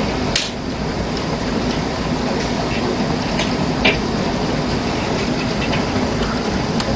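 Heavy rain and hail pouring down: a steady rushing wash broken by sharp strikes of hailstones, the loudest just under half a second in and about four seconds in.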